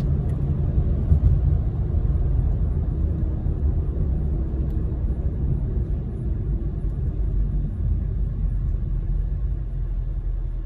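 2004 BMW 325Ci on the move: its 2.5-litre straight-six and the road noise make a steady low drone.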